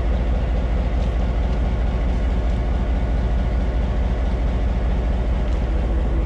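EMD G12 diesel-electric locomotive's engine running with a steady, deep rumble.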